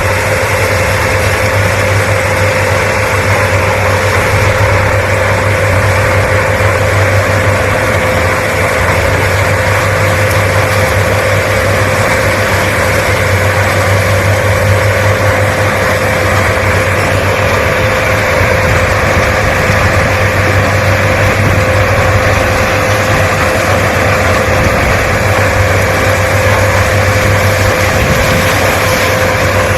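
Case sugarcane harvester running steadily, a constant engine noise with a steady whine over it.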